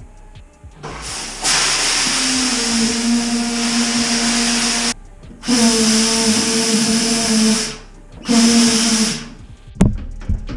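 Compressed air blowing water out of a shower's cold-water line: air and water hiss and sputter from the shower head in three bursts, the first about three and a half seconds long, each with a steady low tone under the hiss. This is the line being purged so it cannot freeze. A sharp knock comes near the end.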